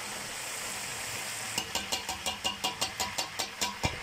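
Hot oil sizzling steadily around a whole chicken deep-frying in a pot. From about a second and a half in, a fast, even ticking of about six ticks a second runs over it and stops just before the end.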